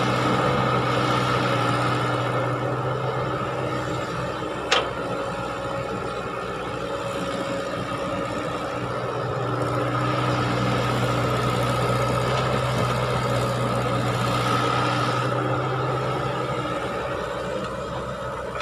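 Diesel engine of an old Caterpillar crawler excavator running steadily while it digs and loads a dump truck, growing louder for several seconds midway as it works under load. A single sharp clank about five seconds in.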